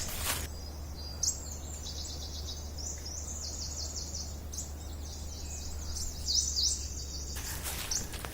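Small forest songbirds singing: a dense run of quick, high chirps and short trills, over a steady low rumble.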